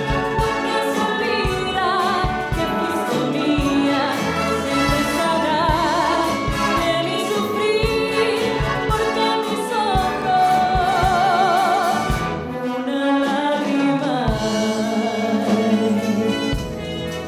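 A woman singing with vibrato through a microphone, accompanied by a live concert band of woodwinds, brass and drum kit.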